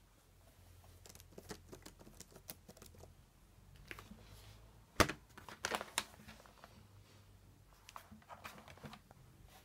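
HP Compaq 15 laptop being handled and moved: scattered clicks and rustles of the plastic case, with one sharp knock about halfway through as the lid is shut, then more clicks as it is lifted.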